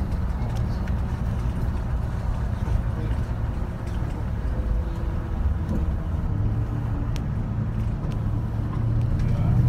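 Steady low rumble of a moving vehicle on a highway, its engine and tyre noise heard from on board while driving.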